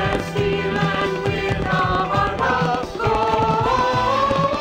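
Music with voices singing long held notes in a slow, stepping melody over a steady low accompaniment.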